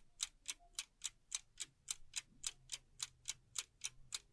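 Fast, even mechanical ticking at about four ticks a second, cutting off abruptly near the end, as from a ticking sound effect laid under an intro.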